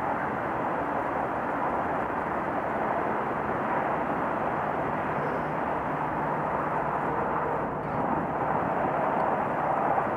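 Two-stroke kart engines idling steadily while the karts stand in a queue, a little louder near the end.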